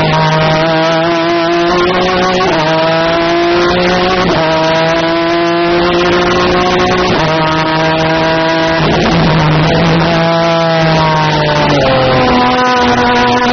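Osella PA 20S sports prototype's 3-litre BMW racing engine running flat out, heard from the cockpit: the engine note climbs through each gear and changes pitch abruptly at every gear change, several times over.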